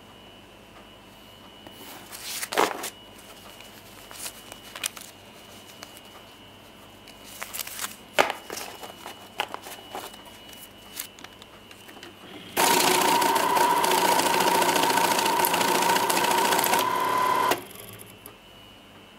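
Banknote counter running for about five seconds as it feeds and counts a stack of mixed-denomination Singapore dollar notes: a loud, fast, dense whirr with a steady tone, stopping abruptly. Before it, scattered clicks and handling noises.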